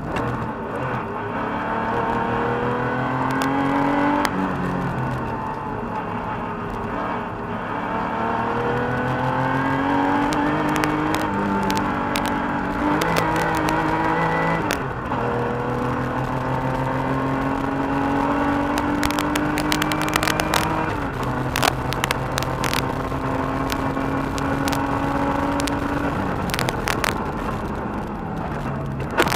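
1985 Porsche 911 Carrera's air-cooled flat-six, heard from inside the cabin and driven hard. The engine note climbs steadily and falls back about five times as the driver accelerates, shifts and lifts, with a few sharp clicks in the second half.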